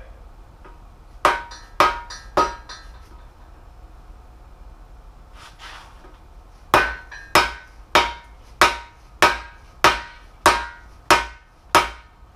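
Dead blow hammer striking the end of a long bearing-driver bar, driving a balance shaft bearing into the bore of a Jeep 3.7L engine block. Three blows, a pause, then an even run of about nine blows a little over half a second apart, each with a short metallic ring.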